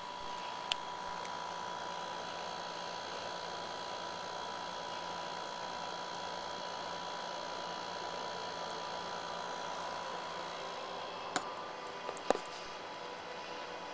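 Steady background hiss and hum with a faint constant high tone, broken by a few sharp clicks: one about a second in and a small cluster near the end.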